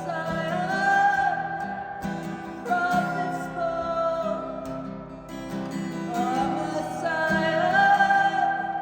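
Worship song with long held sung notes over strummed acoustic guitar.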